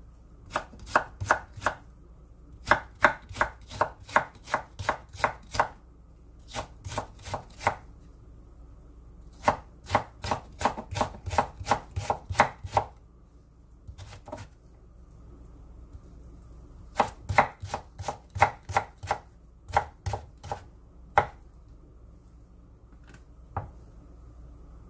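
Chef's knife julienning carrots on a wooden cutting board: runs of quick, sharp knocks of the blade striking the board, about three or four a second, with short pauses between runs and only a few scattered strokes near the end.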